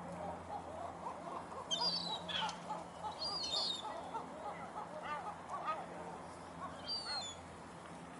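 Seagulls calling in a quick run of short, yelping notes. A few higher, thinner bird chirps come in about two, three and a half and seven seconds in, over a low steady hum.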